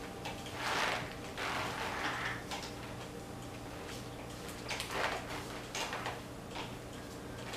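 Wet mop swishing across a glazed tile floor in a few separate strokes, over a faint steady hum.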